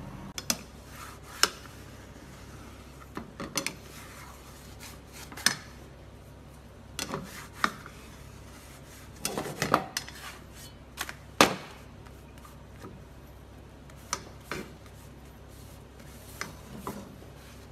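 Kitchen utensils knocking, tapping and scraping against a nonstick frying pan, in irregular sharp clicks, over a steady low hum.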